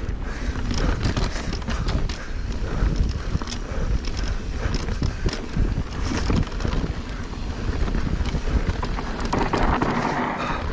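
Ibis Ripmo full-suspension mountain bike ridden fast down a rocky dirt trail: a steady low rumble from the tyres and wind on the microphone, with frequent clicks and rattles from the bike over rocks and roots.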